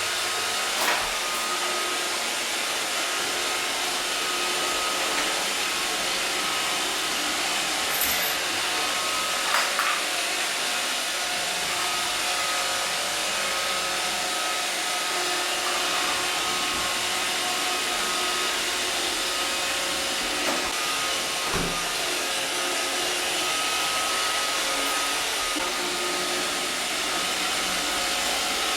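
iRobot Roomba 560 robot vacuum running with a steady whirring hiss and faint on-and-off whining tones, with a few brief knocks.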